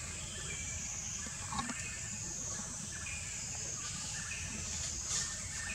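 Steady high-pitched drone of an insect chorus, with a few short faint chirps and a couple of soft clicks over it.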